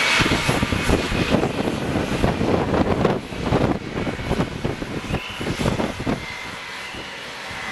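Engine noise from a Boeing 777-200LR airliner at the gate, a steady rush with a thin high whine, fading about three seconds in, over an uneven, gusty low rumble.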